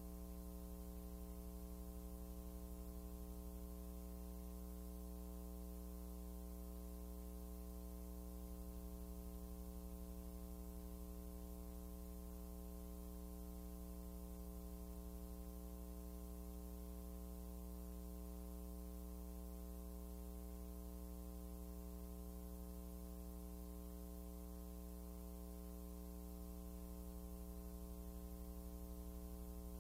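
Steady electrical mains hum, a low buzz with a ladder of higher tones above it and faint hiss, unchanging throughout.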